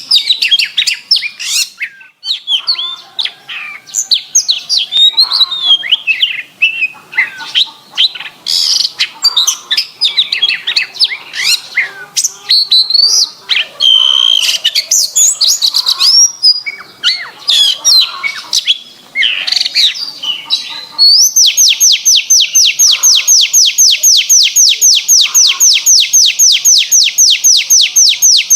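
Domestic canary singing loudly and clearly: a long run of varied, quickly changing whistled phrases, then about three-quarters of the way in a fast, even trill of many repeated notes.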